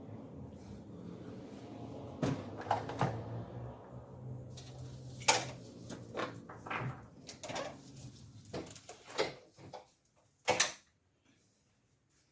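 Clicks, taps and light knocks from a laptop being handled, about ten of them at uneven intervals, over a low steady hum that stops about ten seconds in.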